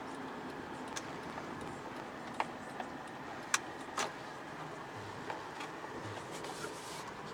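A car driving: steady road and engine noise, with a few short sharp clicks and ticks scattered through it.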